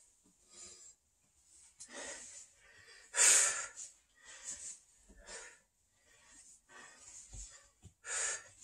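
A man breathing hard through a set of crunches, a short forceful exhale with each repetition, about one a second, one louder than the rest a few seconds in.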